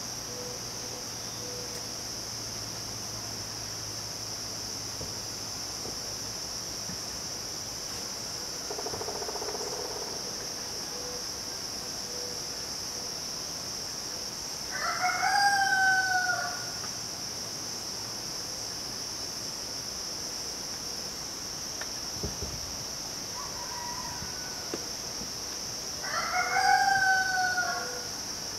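Rooster crowing twice, once about halfway through and again near the end, over a steady high drone of midsummer insects.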